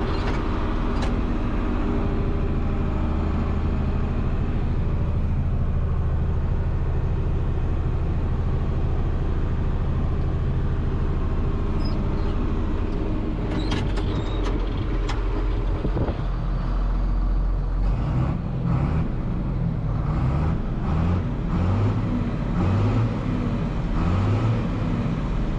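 John Deere 4640's six-cylinder turbo diesel engine running, heard from inside the tractor cab while driving. Steady at first, then in the last several seconds the engine note goes uneven, stepping up and down.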